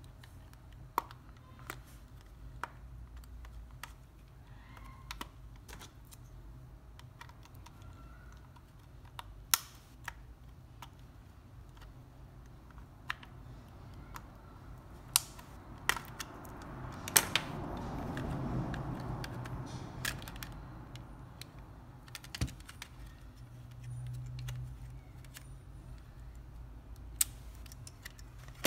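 Sporadic small plastic clicks and taps from a PlayStation 4 DualShock 4 controller being handled, unscrewed and opened, with a longer, louder stretch of handling noise about two-thirds of the way in.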